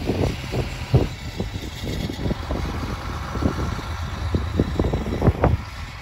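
Blizzard wind gusting hard against the microphone: a constant low rumble broken by irregular buffeting thumps, over a steady hiss of wind-driven snow.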